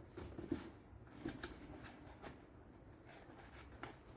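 Faint, scattered rustles and light handling sounds of a wet wipe being pulled out and rubbed over wood-glue squeeze-out.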